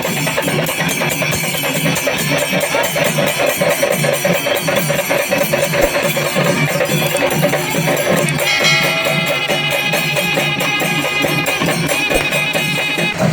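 Kerala temple festival melam: drums beaten in a fast, dense rhythm with jingling hand cymbals. About eight and a half seconds in, a high held tone joins over the percussion.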